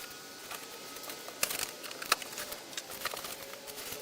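Cardboard boxes and packing being handled during an unboxing: irregular light clicks, taps and rustles, a couple of them sharper about a second and a half and two seconds in.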